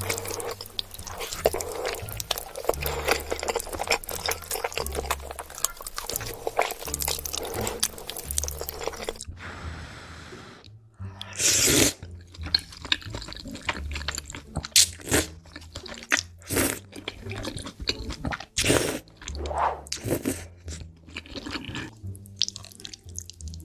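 Close-miked eating of noodles: wet chewing and mouth sounds, a dense crackle for about the first nine seconds, then separate louder bites and smacks. Background music with a repeating low bass line plays underneath.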